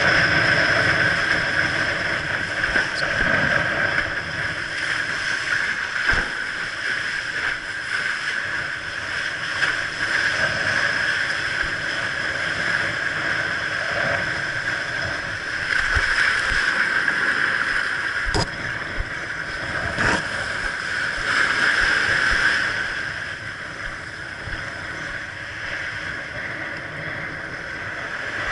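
Wind and water rushing past a windsurfer's rig-mounted camera as the board skims over choppy water, with a few sharp knocks from the board hitting the chop. It gets quieter about two-thirds of the way through as the board slows into the shallows.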